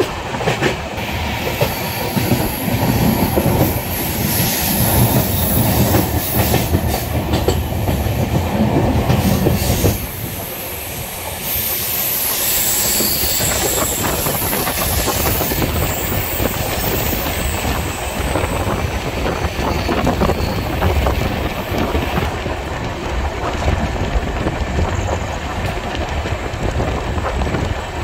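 Passenger train running along the track, heard close up from the open side of a moving coach: a steady rushing rumble with wheels clattering over rail joints. The noise drops suddenly about ten seconds in, and a high wheel squeal comes in briefly soon after.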